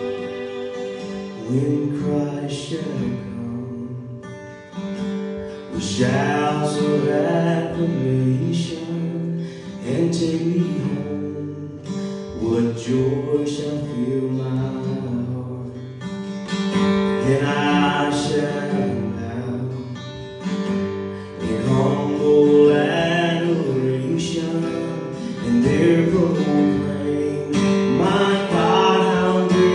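A man sings to a strummed acoustic guitar, with a fiddle playing as it opens.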